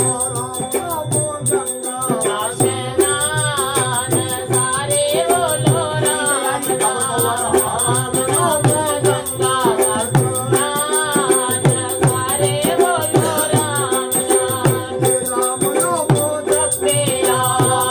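Chambyali musada devotional folk singing: a man's voice sings a bending, ornamented melody over a steady droning string tone, with a small hand drum keeping a regular beat.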